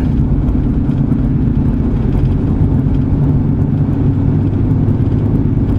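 Car driving at a steady cruising speed, heard inside the cabin: a constant low engine drone and tyre rumble that holds level throughout.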